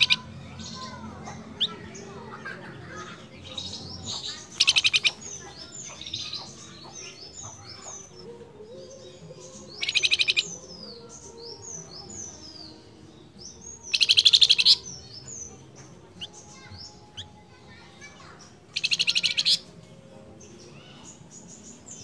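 Caged male flamboyan songbird calling in full song: a loud, rapid trill of high notes about every four to five seconds, each under a second long, with softer quick downward-sliding whistled notes in between. The calls are the male calling to a female.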